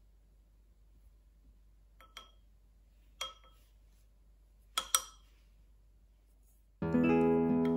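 Wooden chopsticks knocking against a ceramic bowl of beaten egg yolk, a few light clinks with a short ring: a pair about two seconds in, one about a second later, and a pair about five seconds in. Acoustic guitar music starts near the end.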